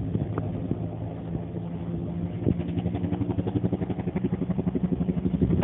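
Low-flying helicopter passing over, its engine drone under a fast rhythmic rotor chop that becomes clearer about halfway through and grows slightly louder toward the end.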